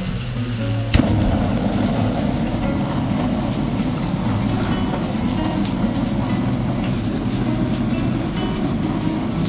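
A SOTO ST-450 gas torch on a butane canister clicks alight about a second in, then runs with a steady roar of blue flame.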